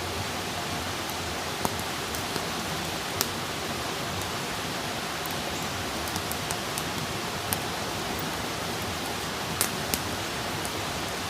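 Wood fire burning with a steady hiss and scattered sharp crackles and pops, a couple of louder pops about three seconds in and near the end.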